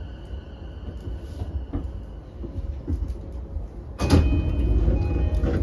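Interior of a JR E233-5000 series commuter car at a stop: a low steady rumble with a few light knocks, then about four seconds in the passenger doors open with a sudden loud rush of noise that carries on to the end.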